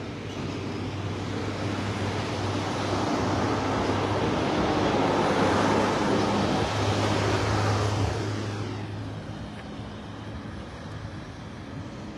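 A motor vehicle passing nearby: its noise swells over several seconds and fades away about eight seconds in, over a steady low hum.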